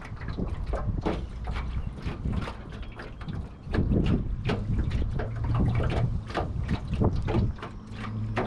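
Water slapping and knocking against the hull of an aluminium boat, many short irregular slaps, with wind on the microphone.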